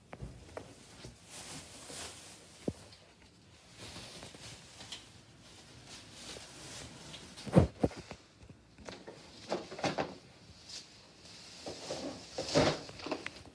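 Rustling and handling noises of a bag and objects being gathered from under a Christmas tree, with scattered light knocks and footsteps; a louder thump comes about halfway through and another near the end.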